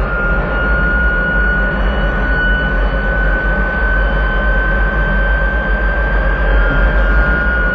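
Aircraft engine noise in flight: a loud, steady roar with a constant high-pitched whine over it.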